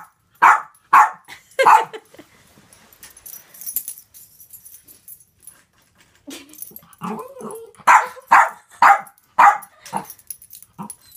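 Small dog barking: three quick barks about half a second apart, then after a pause of a few seconds a second run of five or six barks.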